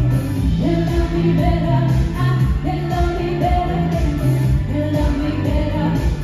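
Two women singing live into handheld microphones, amplified, over musical accompaniment with a steady bass line and beat.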